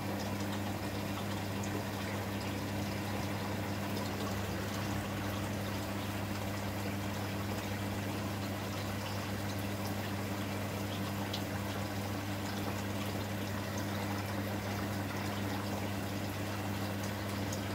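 Aquarium pump running steadily, with water bubbling and trickling over a low, even hum.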